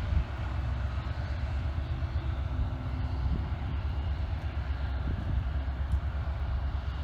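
Garbage truck's engine running, a steady low rumble.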